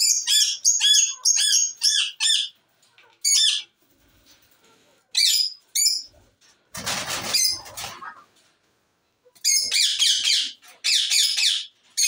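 Indian ringneck parakeets screeching in rapid runs of harsh, repeated calls, with a few single calls between them. About seven seconds in there is a brief flurry of wingbeats as one flies across the aviary.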